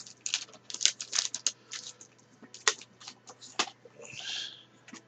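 Trading cards and their foil pack wrapper being handled: a quick, irregular run of sharp clicks and crinkles, with a short rustle about four seconds in.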